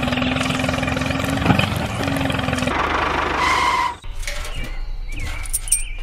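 Small motor running with a rapid chattering buzz and a steady hum, stopping abruptly about two-thirds of the way through, after which only quieter rattling and small mechanical noises remain.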